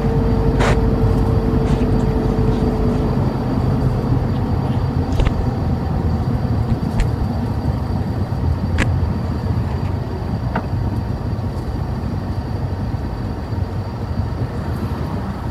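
Outdoor background: a steady low rumble with a faint hum that fades out about three seconds in, and a few short sharp clicks.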